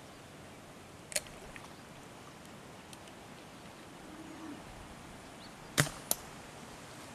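Dart gun firing toward an elephant: a sharp crack near the end, followed a third of a second later by a second, softer crack. A fainter sharp click comes about a second in, over quiet open-air background.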